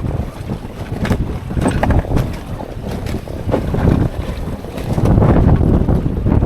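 Wind buffeting the microphone on a small open boat at sea: an uneven low rumble that swells about five seconds in.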